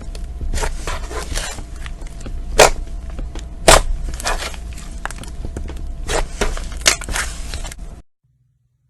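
Slime being squeezed and worked by hand, with irregular wet clicks and crackling pops of trapped air, two of them loud, about a third and halfway in. The sound stops abruptly near the end.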